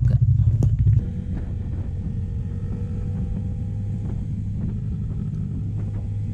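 Motorcycle engine running on the move, a steady low rumble with wind on the microphone. It is louder for about the first second, then drops suddenly to a lower even level.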